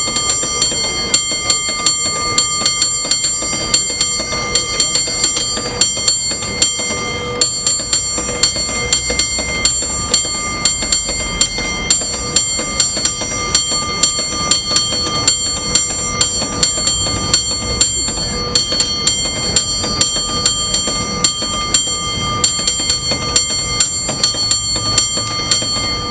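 A San Francisco cable car bell rung in a contest routine: quick, rhythmic strokes, about two to three a second, each stroke ringing on so that the bell's tones carry over into the next.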